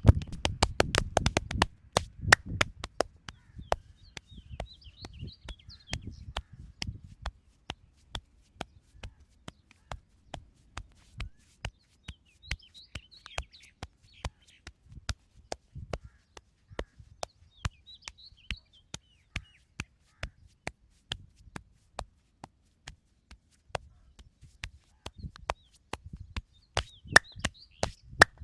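Massage by hand: rapid, sharp slapping and tapping strikes on the body, in a fast flurry over the first two seconds and then a steady run of a few strikes a second. Birds chirp faintly behind them a few times.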